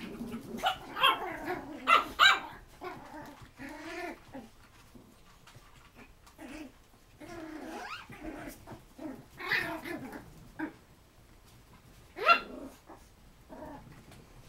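Small puppies play-growling and yapping as they wrestle, in a run of short yips and growls. The loudest yaps come about two seconds in, and a sharp rising yip comes near the end.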